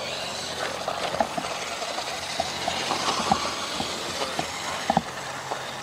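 Radio-controlled monster truck driving on a dirt track: a steady hiss with many small clicks and knocks from the truck and its tyres on the dirt, a few of them sharper.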